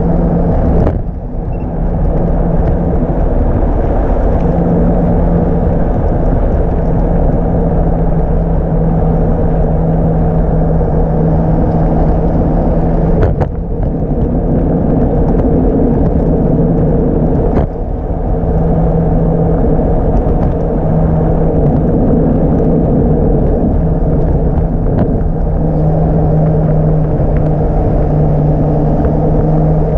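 Riding noise of a Segway Ninebot Max G30LP electric scooter: a loud, steady rumble of wind and road with a steady low hum, broken by a few brief knocks, one about a second in and two in the middle.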